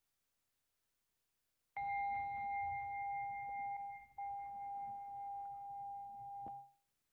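Singing bell struck, ringing a steady tone with fainter higher overtones, marking the start of a period of silent prayer. The ring drops out for a moment about halfway through, then cuts off suddenly.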